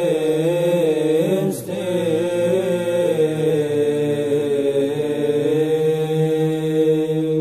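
Male monastic choir singing Byzantine chant: a slow melody moving over a steady held low drone (the ison).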